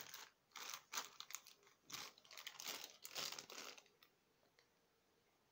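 Thin clear plastic bag holding a coiled LAN cable crinkling as it is handled, in a series of irregular rustles that stop about four seconds in.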